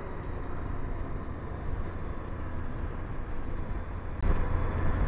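Motorcycle riding along a country lane at around 35–40 mph, heard from the bike: a steady low engine rumble mixed with wind noise on the microphone. It swells louder about four seconds in, with a sharp click.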